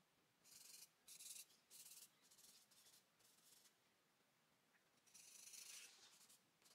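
Charcoal stick scratching across drawing paper in a run of about six short, quick strokes, then one longer rubbing stroke about five seconds in. The sound is faint and dry.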